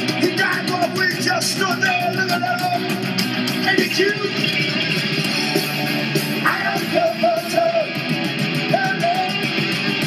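Punk rock music with electric guitars, a fast steady beat and a shouted vocal.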